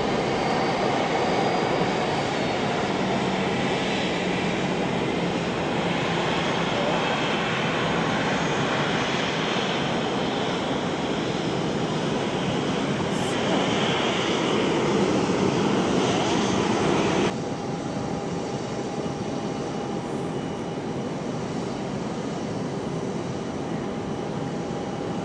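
Bombardier Global 5000 business jet's two rear-mounted Rolls-Royce BR710 turbofans running at taxi power: a steady jet roar with a faint whine. About seventeen seconds in it drops suddenly to a quieter level and runs on steadily.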